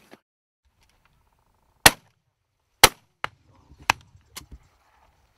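Shotgun shots at birds flying overhead: two loud shots about a second apart, then four more of varying loudness in quicker succession.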